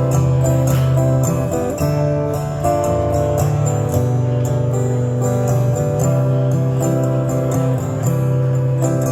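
Acoustic guitar strumming chords in a steady rhythm, an instrumental introduction to a song with no singing yet.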